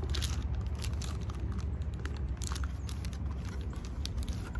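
Clear plastic bag crinkling in short, scattered crackles as the boots wrapped in it are handled, over a steady low rumble.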